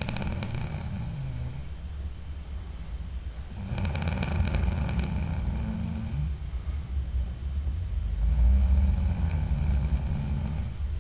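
A man snoring in his sleep: three long snores about four seconds apart, the first two with a rapid flutter.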